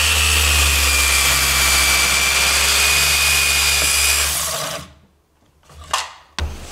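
PRIMERO electric circular saw fitted with a new PROACT blade, crosscutting a 2x4 board. The saw runs loud and steady through the cut, then is switched off about four seconds in and winds down within a second. A few short knocks follow near the end.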